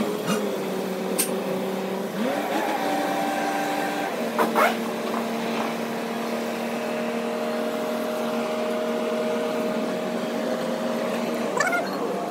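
An engine running at a steady speed, its pitch shifting up and down a few times, with several sharp metal clinks from the axle parts being handled.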